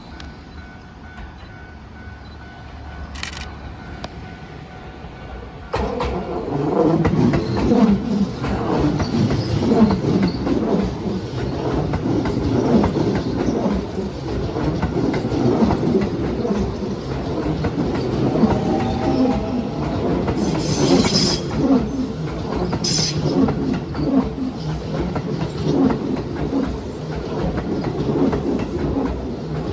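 Keio 8000-series electric train passing a level crossing at close range. It comes in suddenly about six seconds in, and from then on wheels clack over the rail joints over a steady rumble. Before it arrives, the crossing's warning bell rings steadily.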